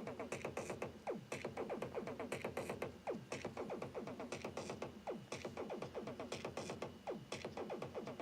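A Teenage Engineering Pocket Operator drum machine playing an electronic beat: a fast, even run of short hits, with a downward-sweeping drum tone about once a second.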